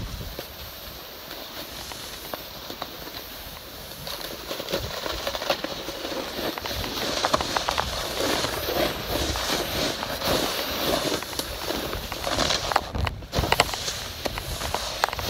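Snowboard sliding and scraping over snow: a steady hiss with many small crackles, getting louder about four seconds in.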